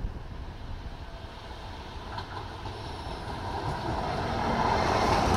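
Tyne and Wear Metrocar electric train approaching, its running noise of wheels on rails growing louder over the last two seconds as it nears.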